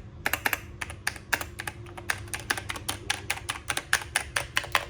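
Typing on a DrunkDeer A75 mechanical keyboard with magnetic switches: a rapid, even run of key clicks, about seven a second. The keys sound smooth and pleasant.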